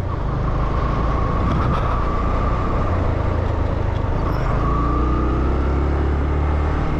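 Yamaha YBR125G motorcycle's single-cylinder 125 cc engine running steadily while riding along a road, under a heavy low rumble of wind and road noise.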